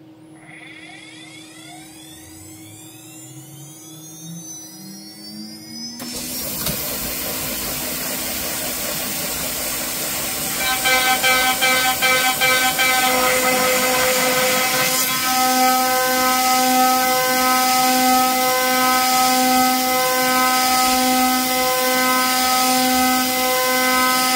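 CNC router spindle on a home-built PrintNC spinning up with a rising whine, then an air nozzle hissing on suddenly about six seconds in. From about ten seconds the end mill cuts a 6061 aluminium plate in an adaptive clearing pass: a loud, steady high machining sound with a tone pulsing about once a second.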